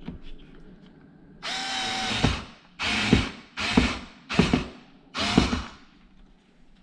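Cordless power screwdriver driving a short screw in five bursts, one longer then four short, fastening a side mounting bracket to a dishwasher.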